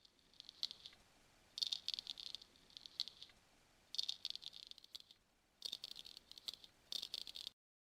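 Added sound effect of a Western straight razor shaving hair: a series of short, crisp scraping strokes in about six groups. It cuts off suddenly near the end.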